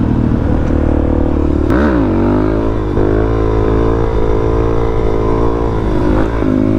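Motorcycle engine running under way. About two seconds in the revs dip sharply and climb again, and there is another brief dip near the end.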